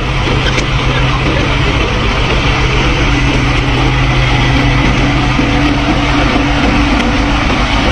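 A heavy engine running steadily. Its low hum fades about five and a half seconds in, and a higher hum comes in about three seconds in.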